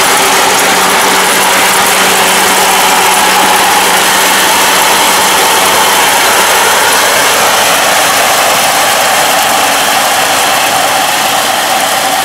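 Kubota ARN460 head-feeding rice combine running while harvesting: its engine and threshing gear make a steady, loud drone with a constant whine on top. As the machine pulls away, the lower hum fades about halfway through.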